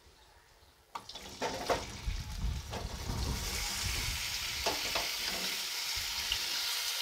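Raw potato wedges tipped from a strainer into hot oil in a metal kadhai: a clatter of pieces landing about a second in, then a steady sizzle as they start to fry.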